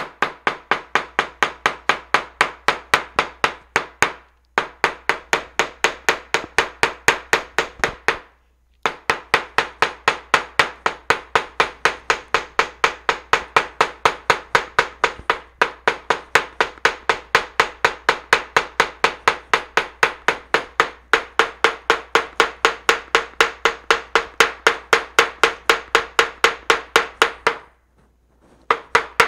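Small hammer pounding a leaf through a paper towel onto paper laid on a cutting mat, beating the plant's pigment into the paper. Quick, even taps about four a second, with brief pauses about four and eight seconds in and again near the end.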